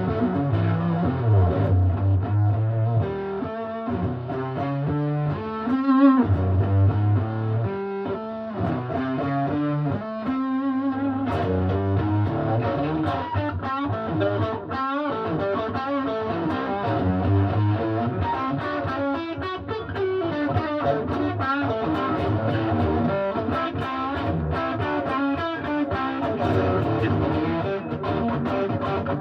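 Electric guitar, a Fender Telecaster on its PAF-style neck humbucker, played through an amplifier in a run of chords and single notes, some of them wavering in pitch with vibrato or bends.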